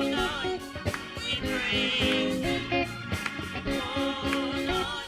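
Live gospel praise music from a church band: held chords over a steady drum beat, playing between sung lines of a praise chorus.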